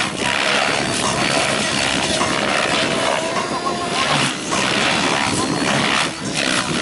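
Radio-controlled Smack 7HV helicopter's rotor blades whooshing loudly as it flips and tumbles through 3D aerobatics, the rotor noise dipping briefly twice in the second half as the blades change pitch, with a faint whine from the drivetrain near the middle.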